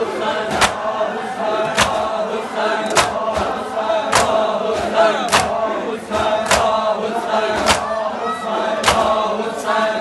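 A large crowd of men chanting a noha in unison while beating their chests together in matam. A sharp, loud slap comes about every second and a quarter, with fainter slaps in between.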